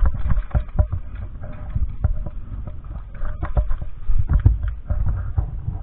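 Irregular dull thuds with sharp clicks mixed in, several a second: the sound of footsteps and gear knocking about on a camera carried by a moving airsoft player.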